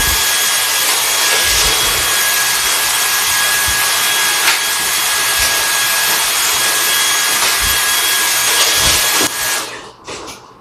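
Electric vacuum cleaner running: rushing air with a steady high motor whine, switched off near the end, the noise dying away quickly.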